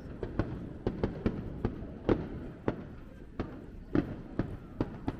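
Aerial fireworks bursting overhead: an irregular run of about a dozen sharp bangs, two or three a second, each with a short echo, some much louder than others.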